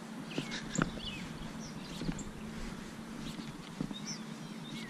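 Birds chirping all around, short rising and falling notes from several birds, over a steady low hum, with a few sharp clicks.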